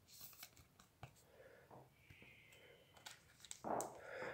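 Near silence, with a few faint clicks and a short rustle near the end from hands handling a clear plastic card sleeve and a foil trading-card pack.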